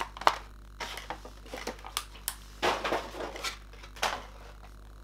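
Light clicks and clatter of hard plastic action figures and their small accessories being handled, with a few soft rustles.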